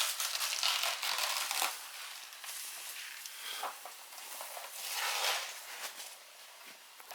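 Crinkling and rustling of a shelter roof of space blankets and spruce boughs being handled, in irregular bursts, loudest in the first two seconds and again about five seconds in.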